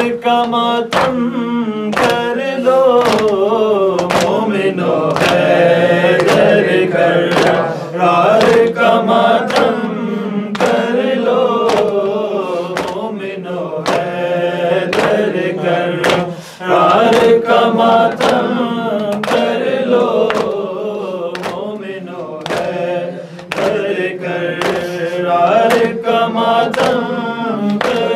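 Men chanting a noha (mourning lament) together, with a steady beat of open-handed chest slaps (matam) a little under two a second keeping time.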